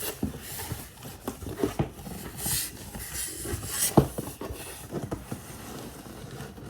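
Cardboard box packaging being handled and pulled apart: irregular rustling, scraping and knocks, with one sharp knock about four seconds in.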